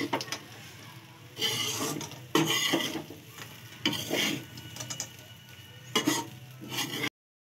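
A spatula scraping and stirring poha with peanuts in a kadhai, in about five separate strokes, then cutting off suddenly near the end.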